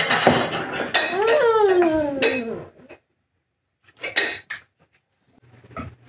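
Plates and cutlery clattering at a meal table. About a second in comes a long sliding sound that falls steadily in pitch. Then it is mostly quiet, with one more short clatter about four seconds in and a low steady hum near the end.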